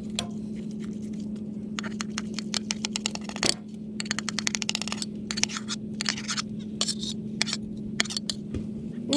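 Knife sawing through a cooked steak, heard as several runs of quick scraping clicks, over a steady low hum.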